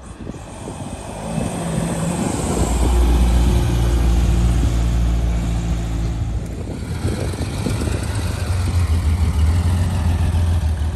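Engines of two classic sports cars rolling slowly past at low revs. First a mid-engined Ferrari, then an early air-cooled Porsche 911 whose lower, steady note fills the last few seconds.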